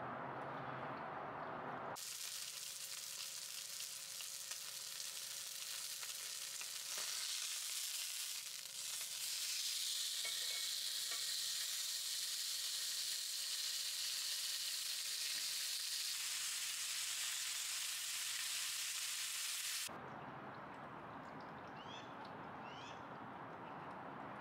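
Steak searing in a cast iron skillet: a steady sizzle, louder from about halfway through, that cuts off suddenly near the end.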